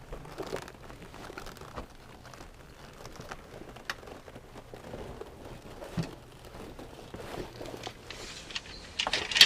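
Rustling and scattered light knocks and clicks of gear being handled and unpacked, with a few sharper knocks and denser rustling near the end.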